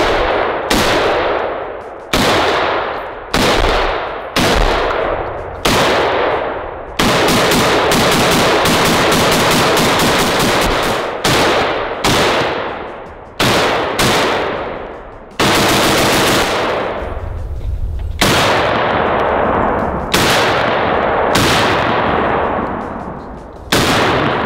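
IWI Galil battle rifle in 7.62 NATO firing with its factory muzzle brake, a harsh, deafening report. Single shots come about a second apart, each with a long echoing tail. About seven seconds in comes a fast string of shots lasting about four seconds, followed by more single shots.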